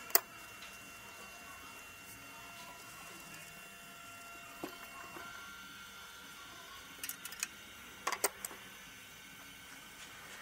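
Scattered light clicks and knocks of hands and tools handling parts in an engine bay, with a cluster about seven to eight and a half seconds in, over a faint steady hum.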